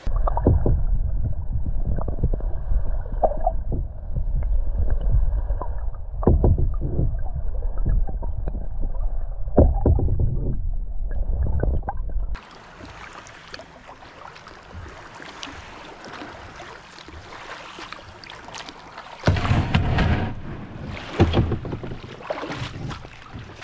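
Muffled underwater sound from a GoPro held beneath a kayak: water sloshing with repeated dull knocks. About twelve seconds in, it switches to open-air sound of the kayak being paddled, with water splashing and a few louder bursts from the paddle strokes near the end.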